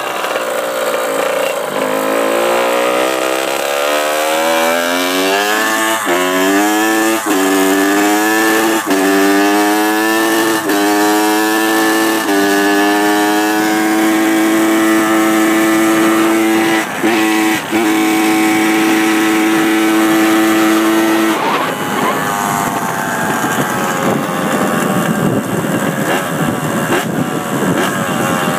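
Honda CR85R 85cc two-stroke dirt bike engine accelerating through the gears: its pitch climbs in each gear and drops back at several upshifts, then holds steady at speed before the throttle is closed about 21 seconds in. The owner says the bike has no powerband.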